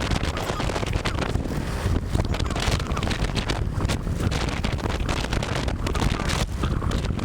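Wind buffeting the microphone: a steady, rumbling rush of noise with no engine note, as from the airflow on a moving scooter.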